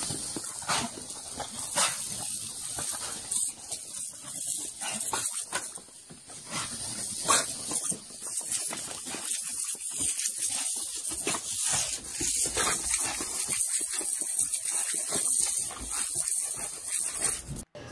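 Garden hose spraying a steady, hissing jet of water that splashes on a wooden deck and on dogs, with a dog's sounds mixed in.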